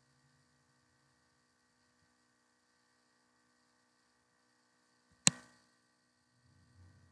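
Faint steady electrical hum, with one sharp computer-mouse click about five seconds in and a faint low rumble near the end.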